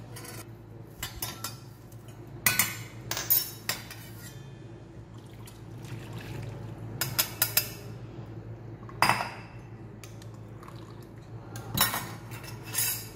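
Tea poured from a stainless-steel saucepan through a small mesh tea strainer into a steel pot, with repeated sharp clinks and knocks of the steel vessels, spoon and strainer against each other.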